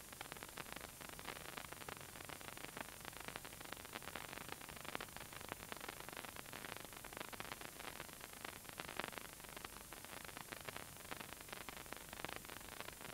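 Faint, continuous crackling static hiss, dense with tiny clicks.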